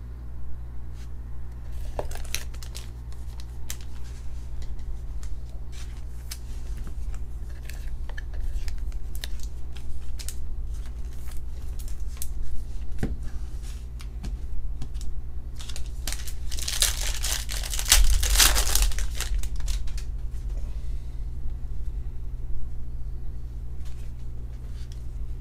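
Trading cards and their packaging being handled: a run of light clicks and rustles as cards are slid and shuffled, with a loud stretch of paper or foil tearing and crinkling about 17 seconds in, over a steady low hum.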